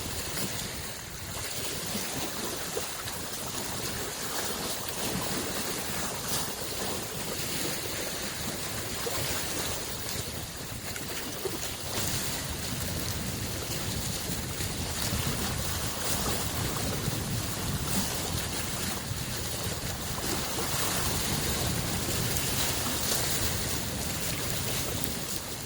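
Small lake waves lapping on the shore, an even wash of water noise that swells and eases gently, with some wind on the microphone.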